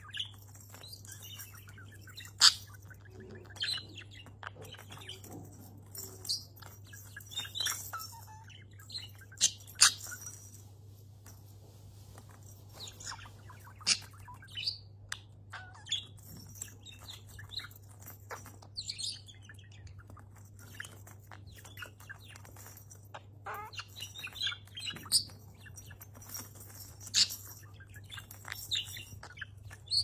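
Budgerigar chirping and chattering in short bursts, mixed with sharp irregular clicks and taps as it pecks and pushes the hollow plastic balls on a wooden spinner toy. A faint steady low hum sits underneath.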